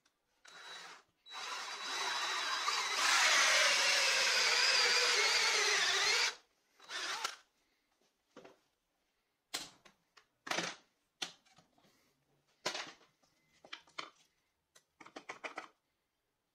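Cordless drill with a hole saw cutting through a plywood board: a short trigger blip, then about five seconds of steady cutting, the pitch sagging near the end before it stops, and another short blip. After that come a string of light wooden knocks and clatter as the boards are handled.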